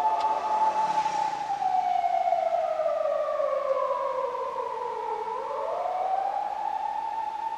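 Siren of a Japanese police 200-series Toyota Crown patrol car on an emergency run: a steady tone that sinks slowly in pitch for about four seconds, then swings back up and holds.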